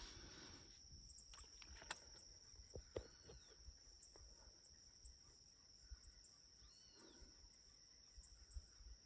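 Faint evening ambience by a lake: a steady, high-pitched insect drone, with scattered soft clicks and two short arching chirps, about three and seven seconds in.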